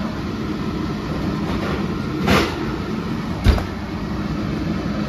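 Two knocks from handling at a gas stove, about a second apart: the first short with a brief scrape, the second a heavy low thud. A steady low hum runs underneath.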